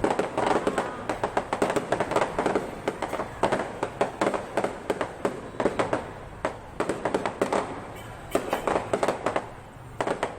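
Fireworks display in its final volleys: rapid, dense bangs and crackles that thin out near the end.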